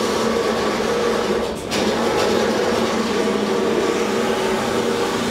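Steady, loud mechanical hum and rumble with a few held tones, briefly dipping about a second and a half in.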